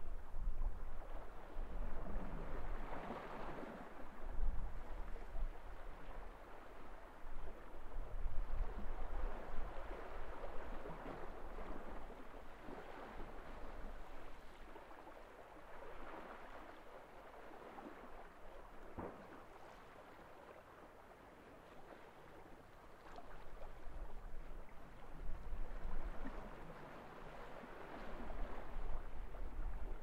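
Sea waves washing up a gravel beach and drawing back, the wash swelling and easing every few seconds.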